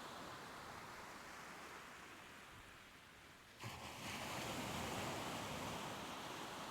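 Ocean surf washing on a shore: the wash dies down slowly, then about halfway through a new wave comes in suddenly and the surf swells up again.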